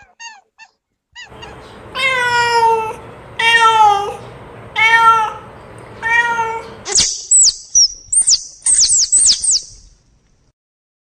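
A cat meowing four times, each meow drawn out for about half a second to a second. The meows are followed by a quick run of short, very high-pitched chirps.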